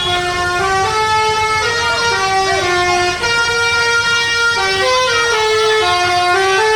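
Bus 'telolet' horn, a multi-tone basuri horn, playing a continuous melody of stepped notes, each held for a fraction of a second, over a low rumble.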